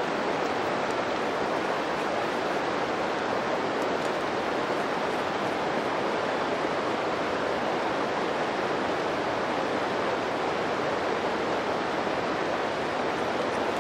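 Steady rush of flowing river water, an even noise at a constant level with no distinct knocks or scrapes.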